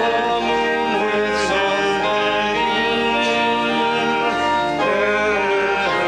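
A hymn sung by a man's voice over held accompanying notes, the melody moving slowly from note to note.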